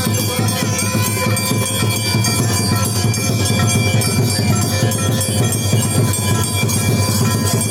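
Music playing steadily, with several sustained tones held throughout.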